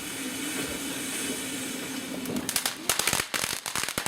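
A firework going off in a rapid, irregular crackle of sharp pops, starting a little over halfway in, over a steady low hum.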